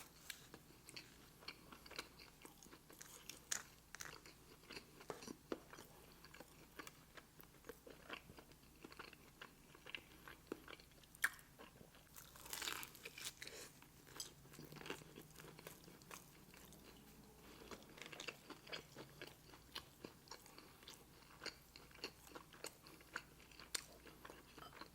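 Quiet close-miked chewing: a person eating, with scattered soft crunches and mouth clicks, a little louder around the middle.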